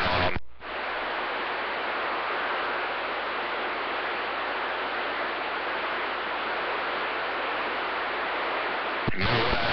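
Steady CB radio static hiss between transmissions. It comes in after a brief dropout about half a second in and cuts off as the next voice comes on air near the end.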